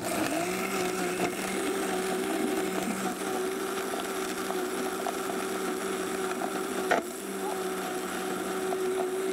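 Vitamix blender spinning up and running steadily at high speed, grinding toasted whole spices and dried red chilies into a dry powder. A single sharp click about seven seconds in.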